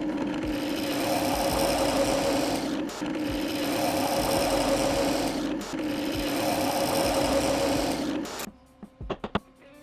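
A power tool motor running steadily with a hum and a hiss, dipping briefly twice, then cutting off about eight seconds in.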